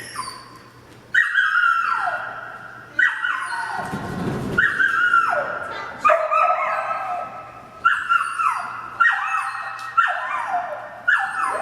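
A dog giving a string of high, drawn-out yelping barks, about eight in all, roughly one a second, each sliding down in pitch.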